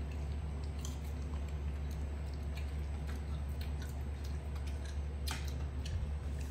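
A young macaque chewing a mouthful of leafy greens: faint irregular wet crunching clicks, one sharper click a little after five seconds in, over a steady low hum.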